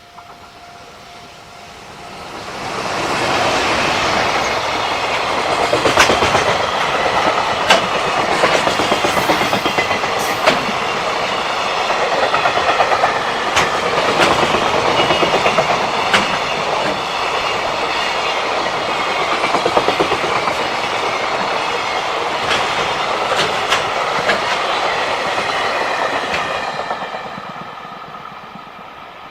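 Container freight train passing over a level crossing: loud running noise of the wagons with repeated sharp clicks of wheels over rail joints, building about two seconds in and fading away near the end. A steady level-crossing alarm tone is heard at first, before the train arrives.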